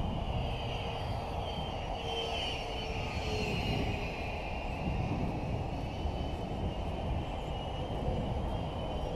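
Ten-blade 70mm electric ducted fan of an FMS F-16 RC jet whining in flight, its pitch sliding up and down as the jet manoeuvres, over a steady low rumble.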